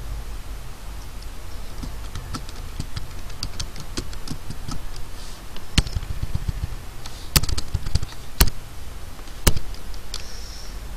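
Computer keyboard typing: a run of quick, light key clicks, then a few sharper, louder single clicks in the second half.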